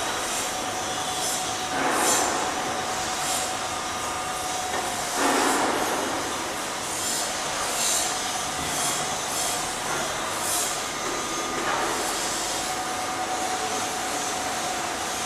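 Steady whooshing hum of a drone's spinning propellers with a faint steady whine, swelling louder about two and five seconds in.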